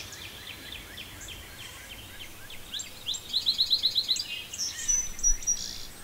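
Wild songbirds singing: scattered short high chirps throughout, a quick run of about eight rapid notes about three seconds in, and a short high whistle near the end.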